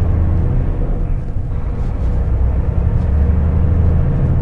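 Engine and road noise of a Mack semi truck under way, heard inside the cab: a steady low-pitched sound with a faint steady tone above it.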